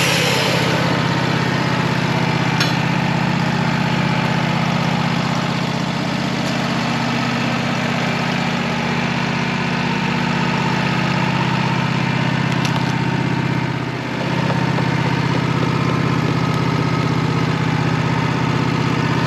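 Sawmill's engine running steadily. It dips briefly in speed and level about two-thirds of the way through, then picks back up.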